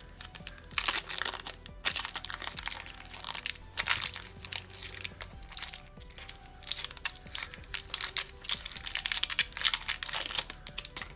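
Clear plastic protective film crinkling and crackling in irregular bursts as it is handled and peeled off a plastic gadget, over quiet background music.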